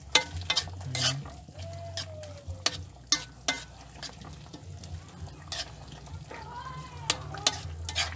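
A spoon stirring chicken soup simmering in a wok, knocking and scraping against the pan in about ten irregular sharp clicks.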